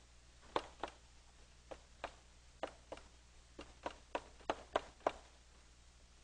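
Chalk tapping against a blackboard as digits are written: about a dozen sharp taps, coming closer together toward the end and stopping about five seconds in.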